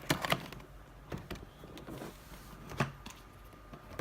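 Cardboard laptop box being opened and handled: a few short knocks, scrapes and rustles of the lid and packaging.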